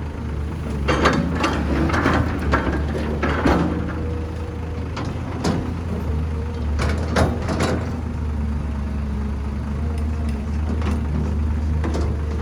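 Heavy diesel construction machinery, an excavator working beside a dump truck, running with a steady low engine drone. Irregular clanks and knocks come over it, a cluster in the first few seconds and more around the middle.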